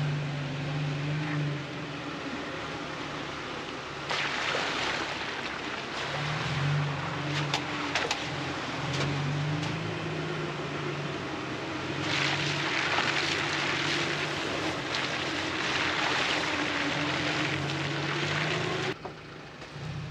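4x4 engine running at low speed on a rough, wet dirt track, with long stretches of rushing tyre noise and a few sharp knocks around the middle; the level drops suddenly near the end.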